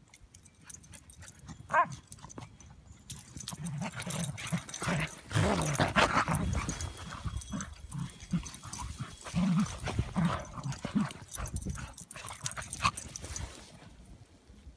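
Two beagles play-fighting in snow trails: low play growls with a short high yelp about two seconds in, over scuffling and crunching snow. It is busiest from about three seconds in and quietens near the end.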